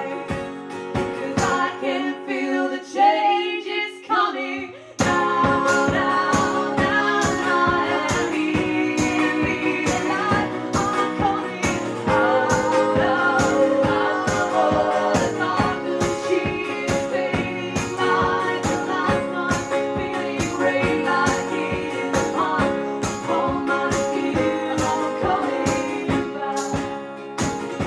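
Live band playing a song with female lead vocals. The low end and beat drop away for a few seconds near the start, leaving mostly voice, then the full band comes back in sharply about five seconds in with a steady beat under the singing.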